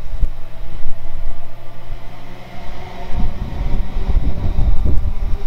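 Class 350 electric multiple unit running past below, pulling away after a signal stop, with a steady electric hum over a low, uneven rumble.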